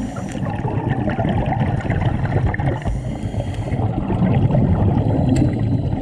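Muffled underwater rumble and gurgling of scuba exhaust bubbles, with scattered small crackles, as heard through an action camera's underwater housing.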